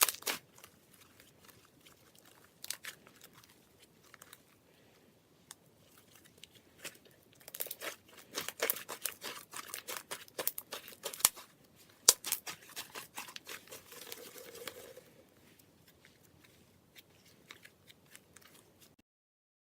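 Clear slime made from liquid glue being squeezed and stretched by hand, giving scattered sticky clicks and pops that grow into a busy, crackling run in the middle and then thin out.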